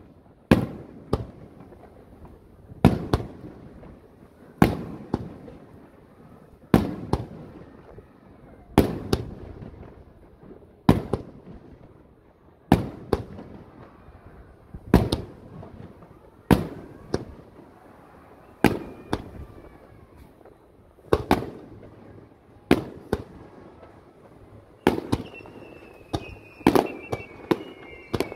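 Aerial firework shells going off in sequence: sharp booms about every two seconds, often in pairs, each echoing away. Near the end a falling whistle joins in and the bangs come faster as a volley starts.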